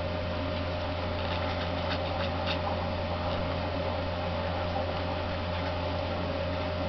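Steady low electrical hum over an even hiss, with a few faint short ticks about one and a half to two and a half seconds in.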